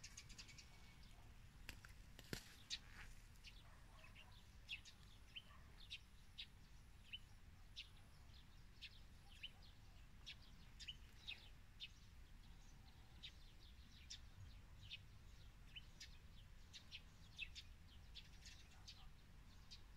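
Faint birdsong: many short, high chirps from small birds, scattered through the whole stretch, over a low steady rumble.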